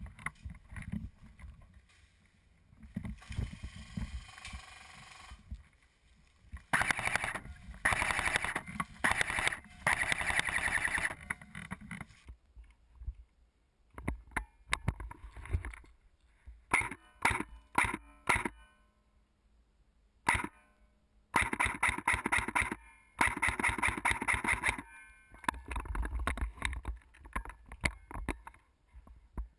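An airsoft rifle fires several bursts of rapid fire, some lasting a few seconds, with a handful of short sharp bursts and pauses in between.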